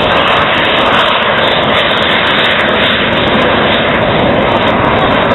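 Blue Angels F/A-18 Hornet jets flying over in their display, a loud steady jet noise.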